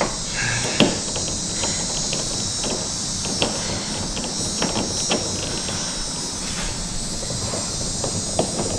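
Crickets chirring steadily at a high pitch, with scattered light clicks and taps of small nuts being fitted onto a car spoiler's mounting studs.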